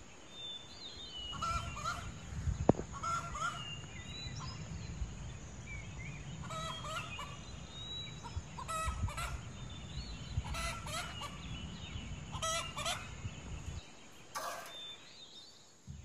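Domestic fowl calling over and over, short pitched calls about every one to two seconds, over a low steady rumble.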